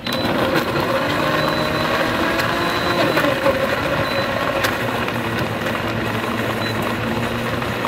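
Commercial countertop blender switching on abruptly and running steadily, crushing ice and fresh fruit chunks into juice.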